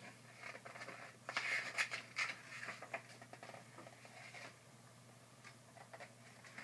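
Pages of a paperback book being turned and handled: a few quick paper rustles and swishes, the loudest between about one and two and a half seconds in, then softer handling of the pages.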